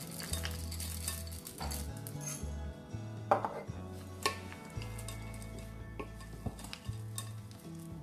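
Chocolate chips poured into a cut-glass bowl of cookie dough, and a wooden spatula knocking sharply against the glass a few times as they are stirred in, under background music.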